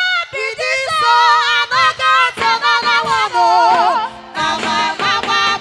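A high-pitched voice sings short phrases with a wavering, vibrato-like melody and brief breaks between them.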